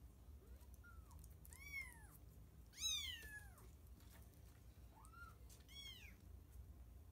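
Kittens mewing: about six short, high-pitched meows that rise and then fall in pitch, the loudest about three seconds in.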